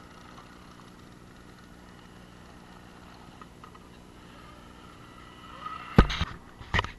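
Scale RC rock crawler's electric motor and gears whining faintly as it creeps over rock. It is broken by a loud sharp knock about six seconds in and a second one just before the end.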